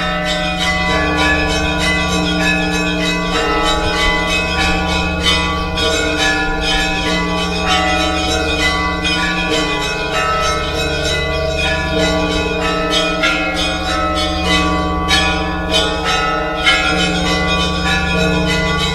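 Russian Orthodox church bells ringing together in a continuous peal. Deep low bells sound steadily beneath rapid, overlapping strikes of smaller bells.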